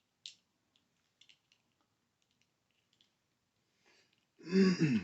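A few faint clicks and taps of Hot Wheels toy cars being handled, then a short loud burst of voice near the end.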